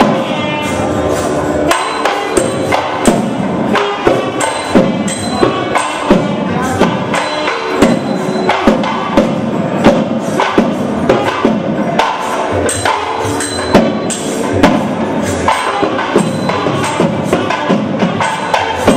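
Temple procession music: a held, wavering melody over frequent sharp drum strokes.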